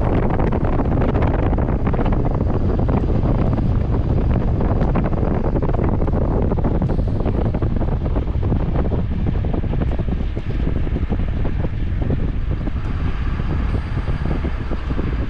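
Wind buffeting the microphone: a loud, steady, fluttering low rumble.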